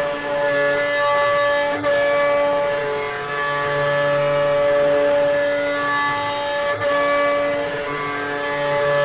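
CNC router spindle whining steadily as the bit carves MDF, with a dust-extractor vacuum running; the pitch mix shifts every second or so as the cut changes direction. The sound dips sharply twice, about five seconds apart.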